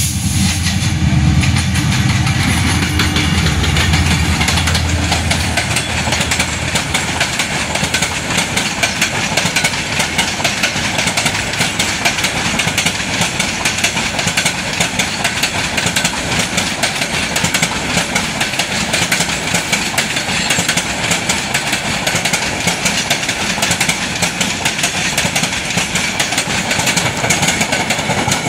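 A diesel-electric locomotive passes close by with its engine running, its low sound fading after about six seconds. Passenger coaches then roll past with steady, dense wheel clatter on the rails.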